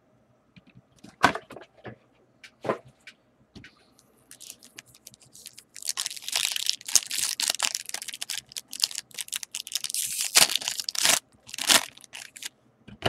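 Foil wrapper of a Bowman Platinum baseball card pack crinkling and tearing as it is ripped open by hand, a dense crackle lasting about five seconds in the second half. It is preceded by a few sharp clicks as packs are handled.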